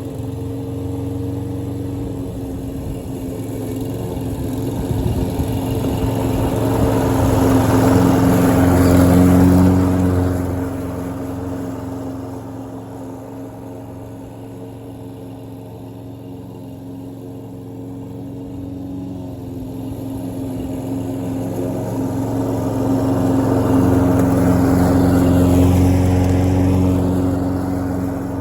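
Troy-Bilt self-propelled lawn mower running steadily while cutting grass, without hesitating or struggling under the load. It grows louder and fades as it passes close by twice, about nine seconds in and again about twenty-five seconds in.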